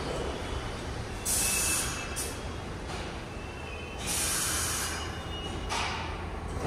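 R62-series subway train giving off several short bursts of air hissing over a low rumble.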